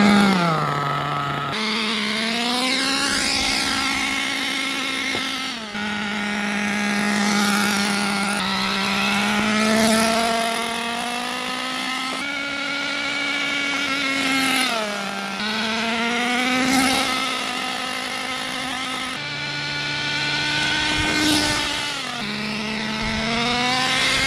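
Redcat Earthquake 3.5's small two-stroke nitro engine running, its pitch rising and sagging unevenly every few seconds. The engine is tuned way too rich during break-in.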